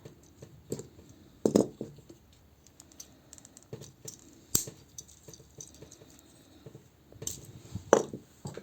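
Hard plastic toy-figure parts clicking and knocking as they are handled and fitted together, with a few louder sharp clacks among the small clicks.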